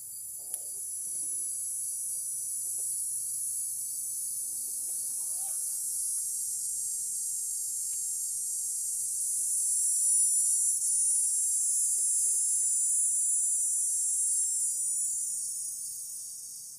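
Insects droning in a high-pitched chorus that swells to its loudest about halfway through and fades away near the end.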